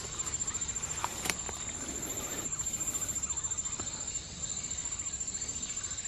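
Insects trilling: a steady, high-pitched, rapidly pulsing buzz, with a couple of faint clicks a little over a second in.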